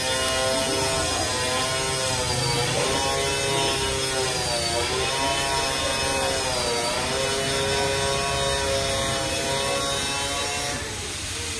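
Hydraulic elevator running: a steady machine whine with a hum under it, dipping in pitch three times and stopping about a second before the end.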